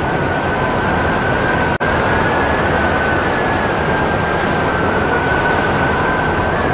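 Strong wind of about 80 km/h blowing over the microphone: a loud, steady rush with a thin whistle held at a nearly constant high pitch and a fainter, lower one beneath it. The sound drops out for an instant about two seconds in.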